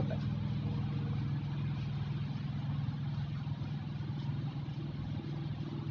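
A steady low engine hum, as of an engine idling, holding an even pitch throughout.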